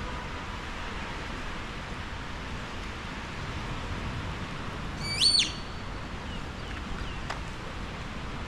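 A single short, loud bird call about five seconds in: a whistled note that leaps up in pitch and drops back. It sounds over a steady hiss of rain.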